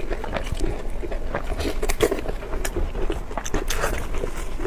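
Close-up eating sounds: a person biting and chewing food, a quick run of clicks and wet mouth smacks over a steady low hum.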